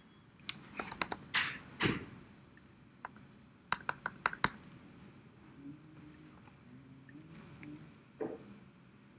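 Typing on a computer keyboard: irregular clusters of key clicks, one starting about half a second in and another around four seconds in, with a single louder knock near the end.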